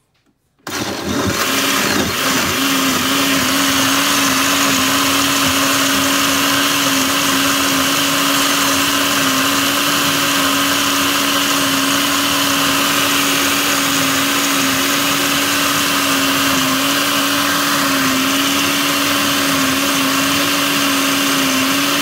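Countertop blender running, puréeing dried red chiles with water and garlic into a liquid chile sauce. The motor switches on about a second in and runs with a steady hum whose pitch wavers slightly.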